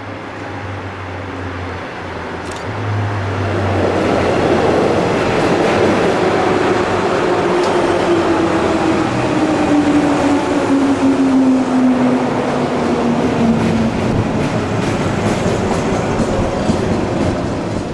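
JR West 103 series electric train passing close by: a steady rumble of wheels and motors that swells about four seconds in, with a low tone sliding steadily down in pitch through the middle. It fades near the end as the last cars go by.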